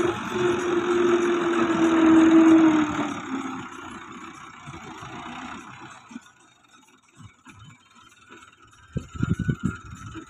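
Fiat 640 tractor's diesel engine running hard as it pushes soil with its front blade, loudest about two seconds in. Its pitch dips slightly near three seconds, then the sound drops much quieter, with a short burst of crackling noise near the end.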